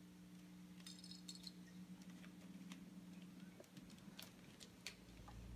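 Plastic 3x3 mirror cube being twisted by hand: faint, irregular clicks of its layers turning.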